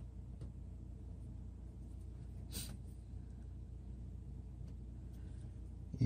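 Quiet room tone with a steady low hum, a faint click about half a second in and a short soft hiss about two and a half seconds in.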